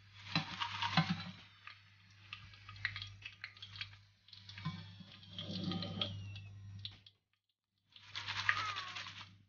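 Fried sweet potato fries shaken and tossed in a perforated stainless steel colander: a rapid patter of light clicks and rustles. It comes in two stretches, with a short pause about seven seconds in.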